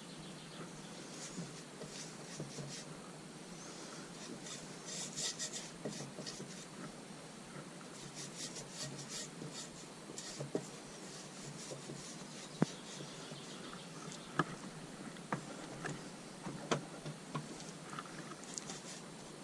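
Hands rubbing and wiping over the inside of a motorcycle tyre, spreading a coating on it, in scratchy strokes. Several light sharp knocks come in the second half.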